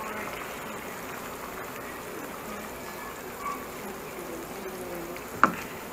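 Barbecue sauce with chicken pieces bubbling and sizzling steadily in a frying pan. A single sharp clink comes near the end.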